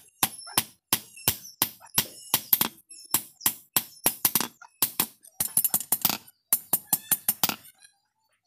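Hand hammer blows on red-hot steel on an anvil block, hot-forging a knife blank: sharp metallic strikes about three a second, coming quicker in short flurries later on, then stopping near the end.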